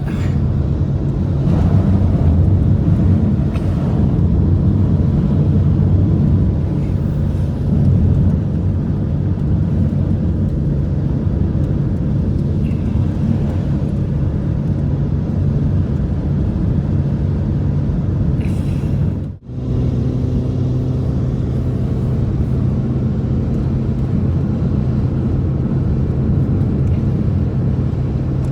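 A loud, steady low rumble with a few faint steady tones in it. It breaks off abruptly about nineteen seconds in and comes straight back.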